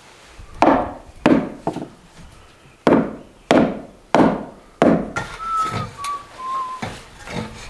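Hammer striking the stones along the top of an old rubble-stone wall: seven sharp blows in about four seconds. Near the end, a few whistled notes stepping down in pitch.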